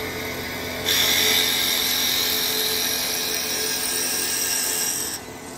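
CNC wood lathe drilling into a spinning wooden blank: about a second in, the twist drill bites and a loud hissing cutting noise with a steady high whine sets in. It cuts off suddenly shortly before the end, leaving the machine's lower hum.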